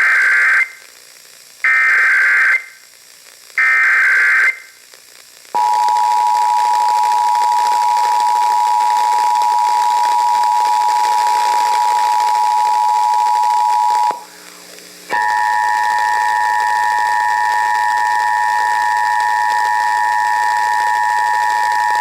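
Emergency Alert System test signal: three short bursts of warbling digital header tones, then the steady two-tone attention signal. The attention signal stops about 14 seconds in and starts again a second later, rougher this time and with a low hum under it.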